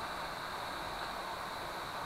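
Hot air rework gun blowing steadily, a constant airy hiss, while heating a clamped AR Drone 2.0 part to loosen it for removal.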